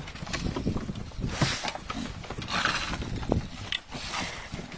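Bulldog huffing noisily twice while it grips and drags a stick, with a few sharp knocks of the wooden stick against the deck and door frame.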